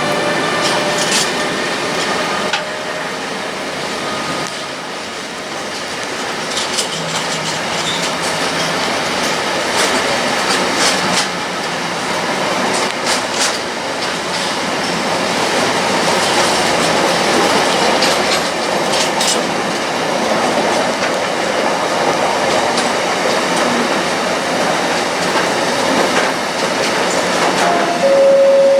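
Intermodal freight train hauled by a Siemens Vectron electric locomotive rolling through the station, its wagons clattering over rail joints with a steady rumble and irregular sharp clicks.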